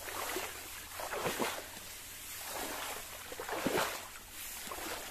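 Irregular swishing and rustling of someone moving through tall grass, four or five soft sweeps over a steady hiss.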